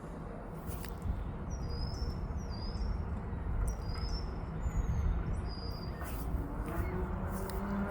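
A small bird repeating short, high, down-slurred chirps, roughly one or two a second, over a steady low outdoor rumble.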